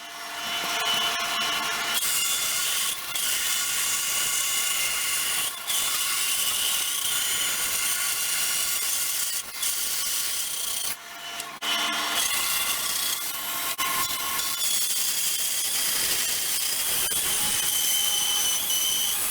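Wooden rear handguard blank being cut to size with a power tool: a steady whirring cut with a few short breaks.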